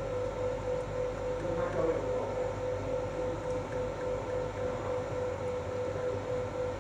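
Steady machine hum with one constant mid-pitched tone over a hiss. A brief, slightly louder sound about two seconds in.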